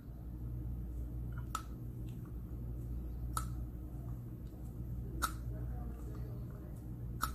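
Four sharp, short clicks, about two seconds apart, over a steady low room hum.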